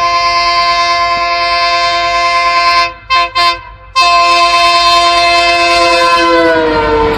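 Train horn sounding a long blast of several steady tones, broken about three seconds in by two short gaps before it sounds again. Near the end all the tones slide down in pitch together.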